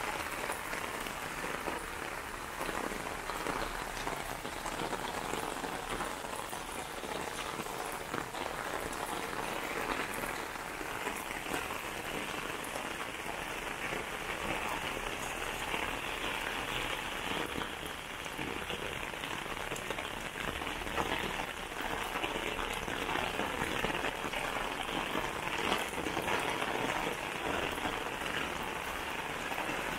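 Steady rain falling, a continuous hiss of rain with many small drop ticks throughout.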